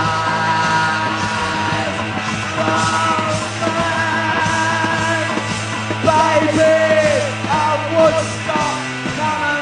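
Punk rock band playing live: electric guitars over a held bass note, with the singer yelling into the microphone.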